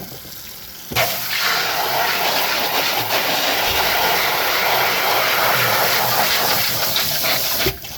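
Kitchen faucet turned on about a second in, water running hard into the sink over the utensils being rinsed, then shut off near the end.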